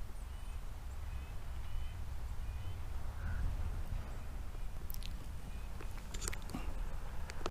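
Wind rumbling on the microphone outdoors, with a bird calling a few short notes in the first couple of seconds. Sharp clicks and crunches in the last couple of seconds, footsteps on a forest trail.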